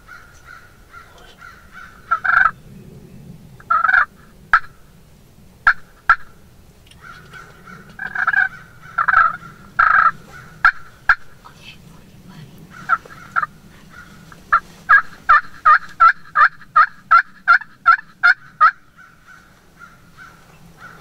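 Wild turkey calling: scattered sharp clucks and yelps, then near the end a quick, even run of about a dozen yelps, roughly three a second.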